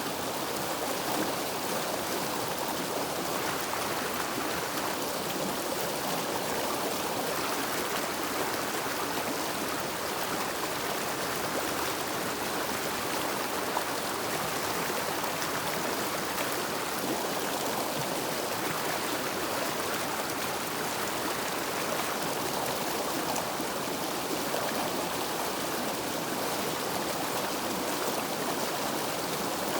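River water flowing, a steady even rush that holds without change.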